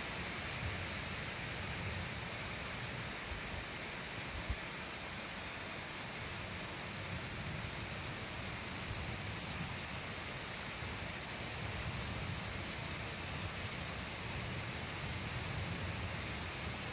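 Steady rain falling, an even hiss, over a low uneven rumble; a single sharp click about four and a half seconds in.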